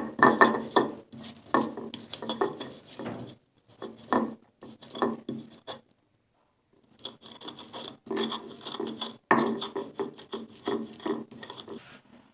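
Kitchen utensils knocking and scraping against dishes in bursts while spices are prepared. The sound cuts off abruptly to silence twice.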